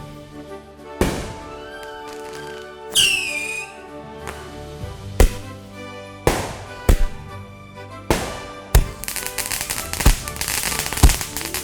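A montage of firework sounds over background music. There are several booming shell blasts that ring away, a short whistle falling in pitch about three seconds in, and sharp bangs. From about nine seconds in comes a dense crackling, with more bangs through it.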